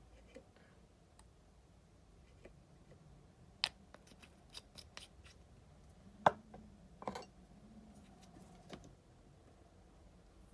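Fly-tying scissors snipping and small tools clicking, a scattered handful of sharp clicks with the loudest about six seconds in.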